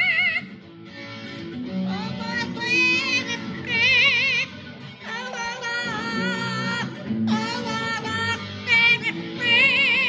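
Double yellow-headed Amazon parrot singing along to an electric guitar, in several phrases of long, high, wavering notes with a strong vibrato.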